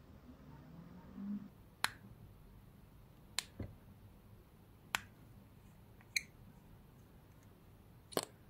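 About six sharp, separate clicks and taps as fingers and fingernails handle a small Kiko Milano Juicy Tint bottle and its gold cap, the last as the cap comes off, with a soft low bump about a second in.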